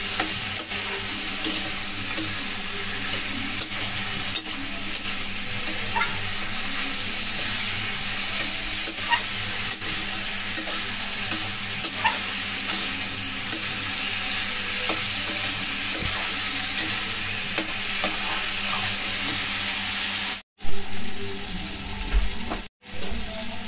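Potato and brinjal pieces sizzling as they fry in a steel kadai, with a metal spatula clicking and scraping against the pan as they are stirred. Near the end the sound cuts out briefly a few times.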